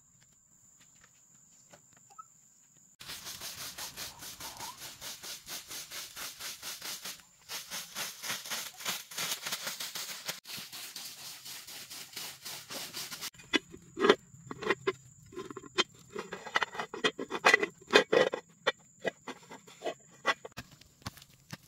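A broom sweeping dry leaves over bare earth, in steady rhythmic scraping strokes, starting about three seconds in. From about thirteen seconds, louder irregular knocks and clatters take over.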